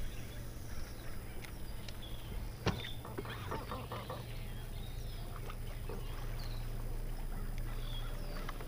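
Outdoor ambience on a fishing boat: a steady low hum with faint, short bird chirps now and then. A single sharp knock comes a little under three seconds in, followed by about a second of rustling.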